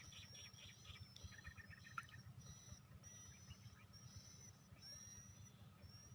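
Faint birdsong: repeated thin, high whistled notes, with a quick run of chirps about a second in, over a low background rumble.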